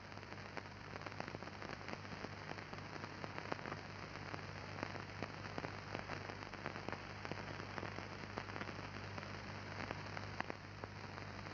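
Surface noise of a worn old film soundtrack between lines of dialogue: a steady low hum under a hiss thick with fine crackles and clicks.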